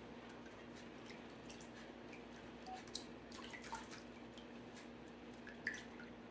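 Faint drips and small plops as honey runs from a metal measuring cup into a pail of warm water, with scattered small ticks, over a steady low hum.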